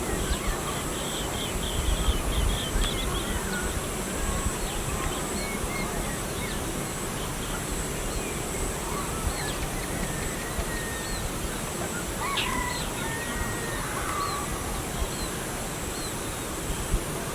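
Several birds chirping and whistling over a steady outdoor background, with a quick run of high chirps in the first few seconds. A louder low rumble comes about two seconds in.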